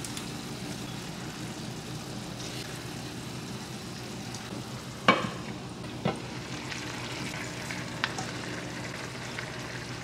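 Food frying in a pan with a steady sizzle, and sharp clinks about five and six seconds in as a glass pot lid is handled.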